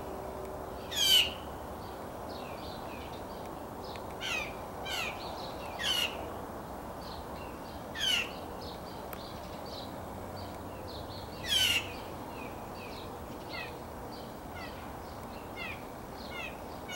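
Blue jay calling: a series of short, harsh, steeply descending notes, the loudest about a second in and near the middle, with fainter notes between and quicker, softer ones near the end.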